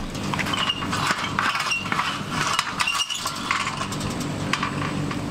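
A caged macaque mouthing and rattling the wire of a chain-link cage, making a run of sharp clinks and rattles with a few brief high chirps, over a steady low hum.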